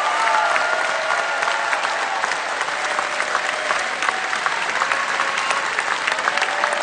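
Large theatre audience applauding: dense, steady clapping, with a few voices calling out near the start.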